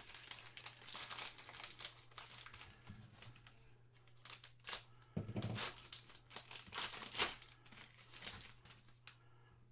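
Foil trading-card pack being torn open and crinkled by hand: irregular crackling rustles of the foil wrapper, over a faint steady hum.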